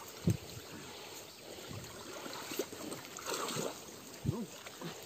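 Shallow stream water sloshing and trickling as a fishing net is hauled through it, with a sudden louder splash just after the start and another about four seconds in.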